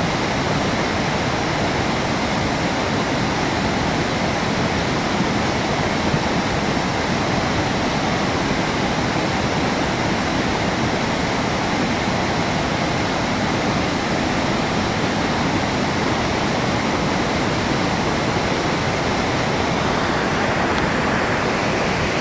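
River in flood, muddy brown water rushing past in a steady, loud roar of fast-moving water.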